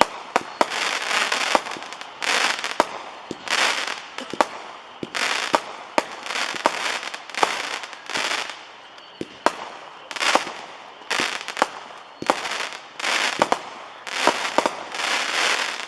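World Class 'Land of the Free', a 20-shot 200-gram consumer firework cake, firing shot after shot. Each shot is a sharp launch thump followed by a noisy break of the shell lasting about half a second to a second, at roughly one shot a second.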